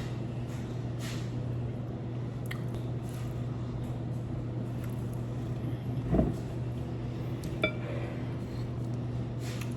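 Cutlery clinking against a dish during a meal, with a soft thump about six seconds in and one sharp ringing clink just after it, over a steady low hum.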